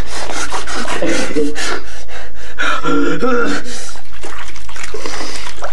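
A child's wordless vocal noises (pants, gasps and short strained cries, one held high) mixed with water sloshing in a foamy bathtub as a plush toy is pushed under the water.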